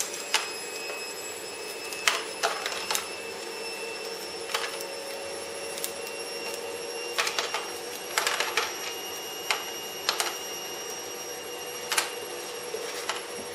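Cardboard wound tokens being popped out of a die-cut punchboard sheet one at a time: about a dozen short sharp snaps at irregular intervals. Under them, a steady hum and high whine from a washing machine running hard.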